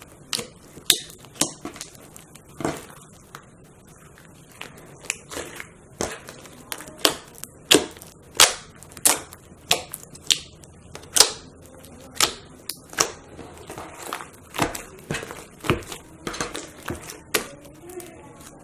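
Slime being squeezed and folded by hand, giving sharp clicking pops at an irregular pace, about one or two a second. The clicks are the sound of a very 'clicky' slime being played with.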